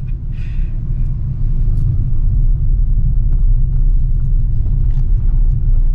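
Car engine and road noise heard from inside the cabin: a steady low rumble as the car climbs a steep mountain road.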